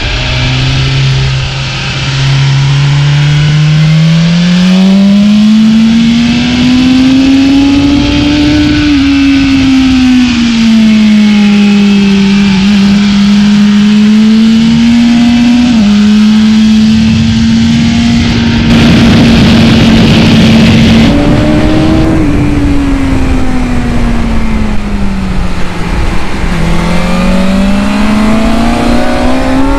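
Onboard sound of a 2019 BMW S1000RR's inline-four with an Akrapovic exhaust, its note rising and falling as the throttle is opened and eased through a series of corners. A rush of hiss lasts a couple of seconds about two-thirds through, and the engine climbs again near the end.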